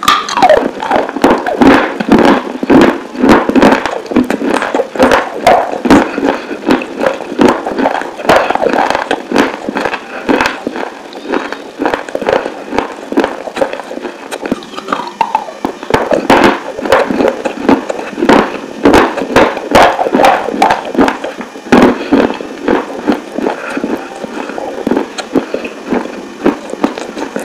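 Close-miked biting and chewing of hard, dry clay pieces: a dense run of sharp crunches and crackles that keeps going with only brief lulls.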